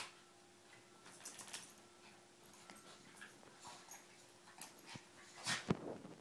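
A Chihuahua and a Jack Russell terrier play-fighting: scattered short scuffles and dog noises, with a louder thump about five and a half seconds in.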